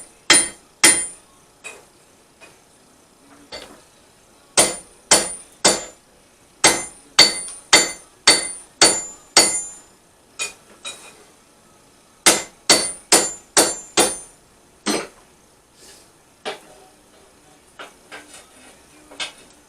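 Blacksmith's hammer striking hot steel on an anvil, in runs of several blows about two a second with a bright metallic ring, then a few lighter taps near the end.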